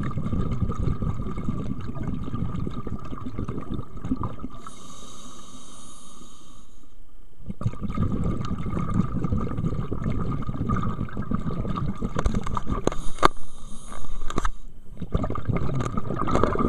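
Scuba diver breathing through a regulator underwater: long stretches of rumbling exhaled bubbles, broken by a hissing inhalation about five seconds in and another around thirteen seconds in.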